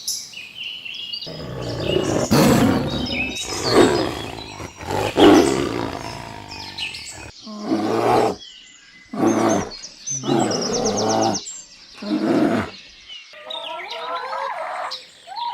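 A big cat roaring again and again, about seven loud roars in a row. Near the end it gives way to a higher, pitched call of a different animal.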